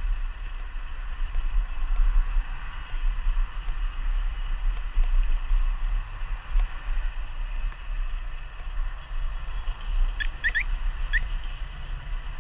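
Wind buffeting the microphone of a camera on a moving bicycle, a gusty low rumble over a steady hiss of tyres and rushing air. About ten seconds in come four short, high, rising chirps.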